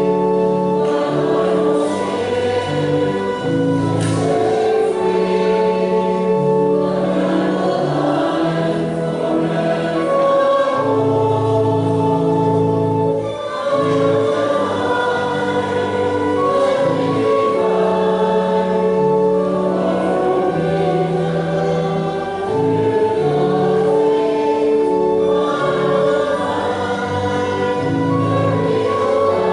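Choir singing a hymn in sustained chords, with held notes and a moving bass line.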